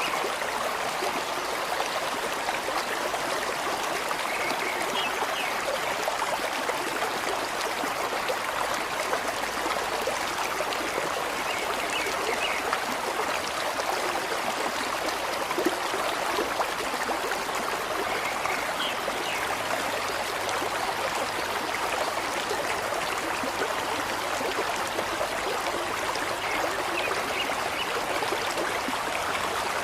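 Steady flowing water, like a stream running, an even rushing that does not let up, with faint short high notes every few seconds.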